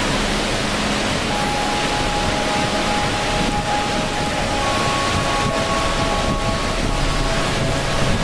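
Waterfall: a steady rush of water pouring over rock, with a few faint, long held tones above it from about a second in.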